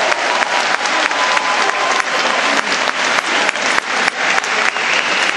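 A large audience applauding, a dense, steady clatter of many hands clapping.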